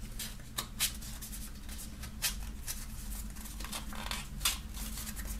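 Hands folding shut a cardboard pack of rolling papers and filter tips: light paper and card rustling with a few sharp little taps and clicks of the flaps.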